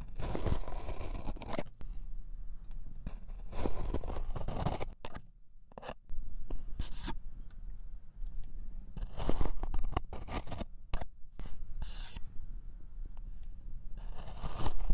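White plastic knife slicing and scraping through kinetic sand packed in a plastic tray, a grainy crunching scrape. It comes in about six strokes with short pauses between them.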